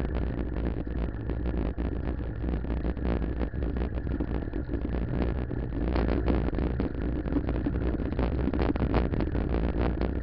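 Wind buffeting the microphone of a camera riding on a moving bicycle, with dense rattling and clicking from the bike and camera mount over the asphalt.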